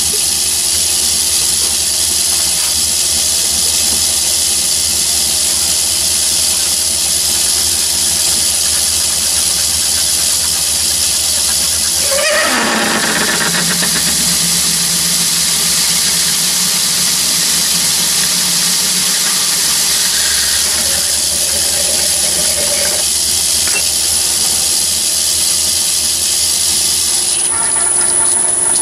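Myford lathe running with a steady high hiss while a flat-bottom drill cuts into hard steel. About twelve seconds in, a lower tone drops in pitch and holds for several seconds as the cut loads the machine, the chuck slowing and slipping a little on its drive belt. Near the end the hiss falls away as the lathe winds down.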